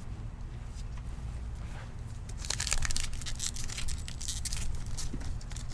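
Plastic card-pack wrapper being crinkled and torn open, a dense crackling that starts about halfway through after a few seconds of quiet handling.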